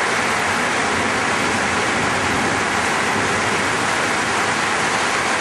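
Heavy rain pouring down, a steady loud hiss that drowns out the voice.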